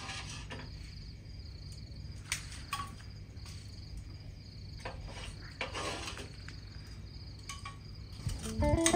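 Crickets chirping steadily, over a low steady hum, with a few scattered clicks and knocks.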